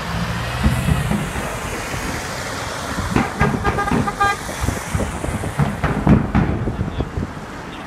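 Road traffic with a bus passing close by, and a vehicle horn tooting a quick run of about five short beeps a little over three seconds in. Irregular thumps follow in the second half.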